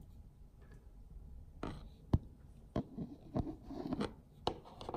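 Handling noise from a TV remote being picked up and handled: about half a dozen sharp clicks and knocks, the loudest about two seconds in, with rustling between them.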